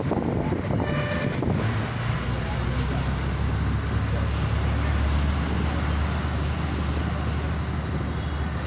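Steady engine drone and road noise of a moving bus heard from inside, the low drone swelling from about two seconds in. A horn toots briefly about a second in.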